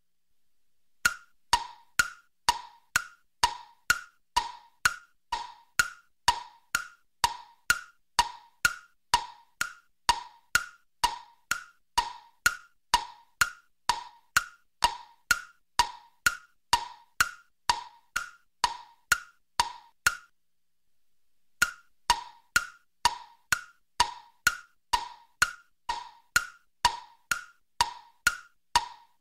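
Background music track of wood-block knocks, about two a second, alternating between a lower and a higher pitch, with a short break about twenty seconds in.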